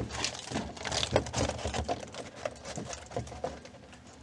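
Foil-faced sound-deadening mat crinkling and tapping as it is handled and pressed down by hand onto a car's steel floor pan: an irregular run of small crackles and light taps that thins out toward the end.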